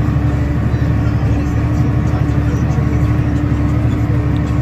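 Tractor engine running steadily, a continuous low drone with a steady hum above it.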